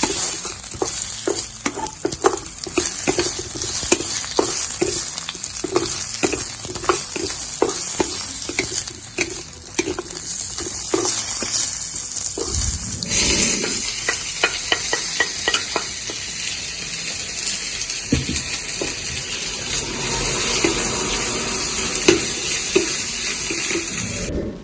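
Food stir-frying in a hot pan: a steady sizzle with a spatula scraping and stirring at about two strokes a second. About halfway through the sizzle gets brighter and the stirring strokes thin out.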